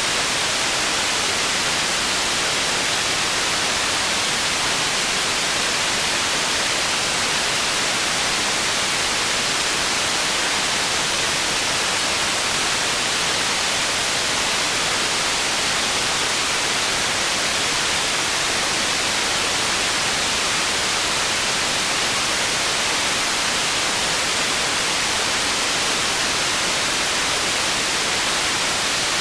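Processed white noise for tinnitus masking: a steady, unchanging hiss, strongest in the upper range and thin in the bass.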